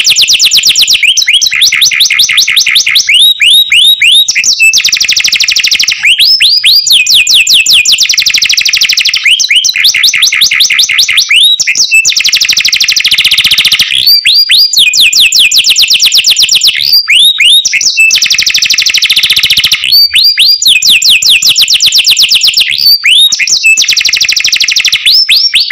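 Domestic canary singing a loud, unbroken song: long, very fast high trills, broken every two to three seconds by quick runs of downward-sweeping notes.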